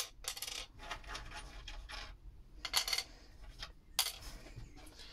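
Small pieces of brass scrap clinking and scraping as they are handled, with a few sharp clicks of metal set down.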